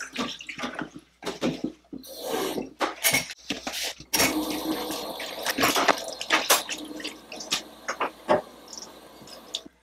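Washing dishes by hand at a stainless steel sink: scattered knocks and clinks of a cup and a plastic container, then the tap is turned on about four seconds in and water runs steadily into the sink, fading near the end.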